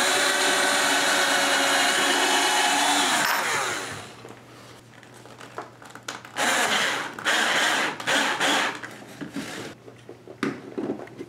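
Cordless drill with a 3/32-inch bit pre-drilling a pilot hole through a baby-gate mounting bracket: a steady motor whine for about three seconds that then winds down. The drill runs again for about two seconds a little past halfway, followed by a few clicks of handling.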